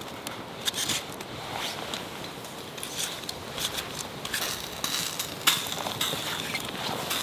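Wood campfire crackling: irregular sharp pops and snaps over a steady hiss, with one louder snap about five and a half seconds in.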